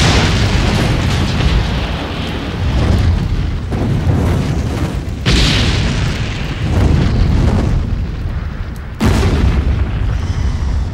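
A series of large fireball explosions from movie stunt pyrotechnics: several sudden blasts, each trailing into a long rumble, with the strongest new blasts about five and nine seconds in.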